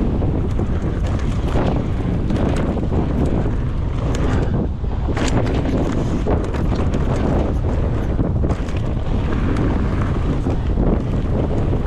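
Wind buffeting the microphone of a rider moving at speed along a trail, with scattered clicks and knocks from the bike over rough ground.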